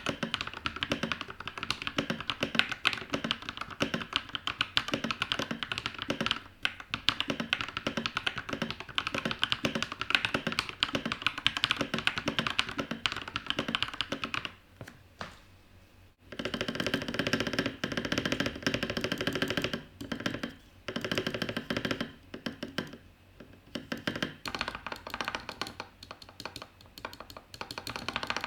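Fast typing on a freshly built TM680 mechanical keyboard with lubed Akko Red Radiant switches and 9009 keycaps: quick runs of key clacks. A short pause about halfway through, after which the typing resumes sounding fuller and lower.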